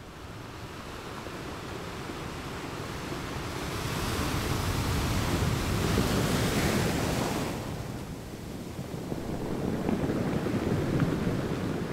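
Ocean surf: a steady rush of waves that swells up to its loudest around the middle, falls back, and builds again near the end.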